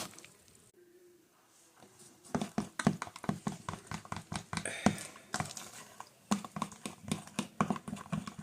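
A utensil clicking rapidly against a bowl, several irregular taps a second, as Kodiak pancake batter with almond milk is stirred; it starts about two seconds in after a quiet moment.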